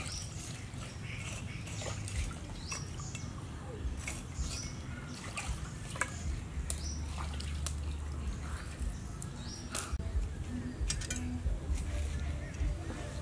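A cleaver blade scraping and tapping through charcoal in a small brick fire pit, making a run of light clicks and knocks. Birds chirp in short falling calls in the background.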